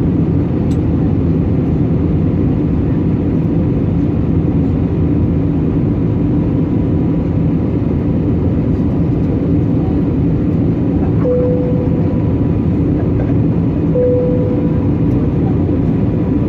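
Steady in-flight cabin noise of an Airbus A320neo: a constant airflow and engine rush with a faint steady hum. Two short tones sound about two-thirds of the way through, under three seconds apart.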